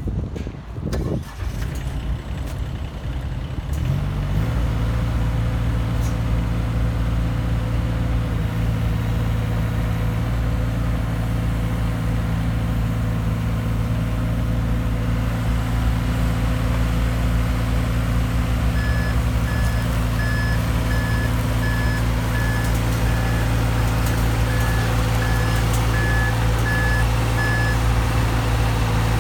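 A few knocks, then the Wacker Neuson 803 mini excavator's Yanmar three-cylinder diesel starts about four seconds in and runs steadily. From about two-thirds of the way through, the machine's travel alarm beeps regularly, about one beep every 0.7 seconds, for roughly nine seconds.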